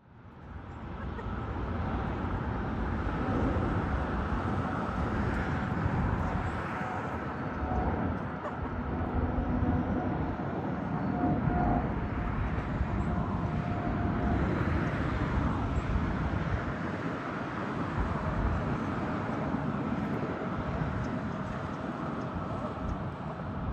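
Jet airliner engines running, a steady rush with thin whining tones through it. It fades in over the first second or two.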